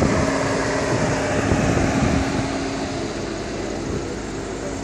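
Steady mechanical hum with one constant low tone over a wash of background noise. An uneven low rumble, like wind or handling noise on the microphone, fades out about two seconds in.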